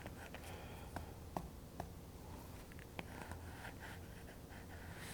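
Faint light clicks, spaced irregularly, of a stylus tip tapping and stroking on a tablet's glass screen while drawing.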